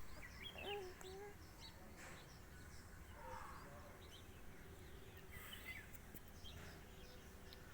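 Faint outdoor background noise with scattered short bird chirps.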